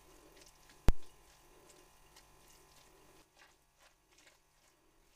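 Black plastic spoon stirring mayonnaise-dressed salad in a glass bowl: faint soft squishing with small scattered clicks. One sharp, loud click about a second in.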